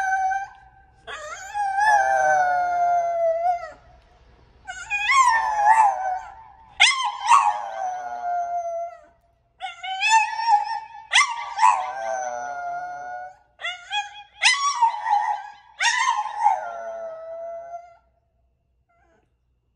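French bulldog howling into a handheld microphone: a series of about eight long howls, many starting high and falling in pitch, with short breaths between, stopping near the end.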